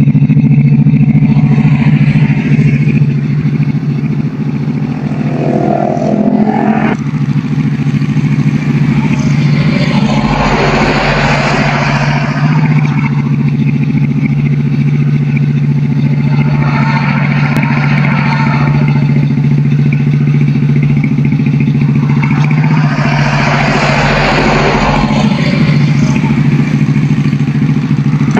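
Small motorcycle engine running steadily at idle, with three stretches of louder revving about ten, sixteen and twenty-three seconds in.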